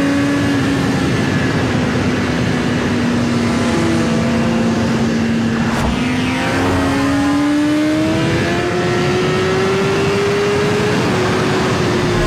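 Car engine running hard at high revs over road noise, its pitch sagging a little and then climbing slowly through the second half, with a sharp click near the middle.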